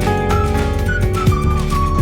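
Background instrumental music with a steady beat, a bass line and a held melody line.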